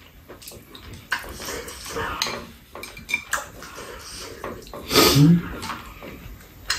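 Chopsticks and spoons clicking and scraping against bowls during a noodle meal, a scatter of light clicks with a louder burst about five seconds in.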